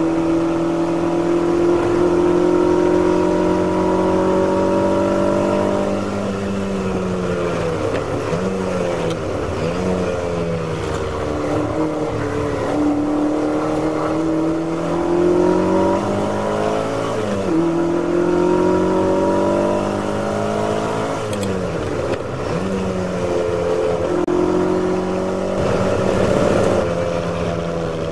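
In-car sound of a Ferrari race car's V8 engine. It runs hard and slowly climbs in pitch, then falls away under braking with several quick rises in pitch as it shifts down for a slow corner. It then pulls back up through the gears, climbing in pitch with a sudden drop at each upshift.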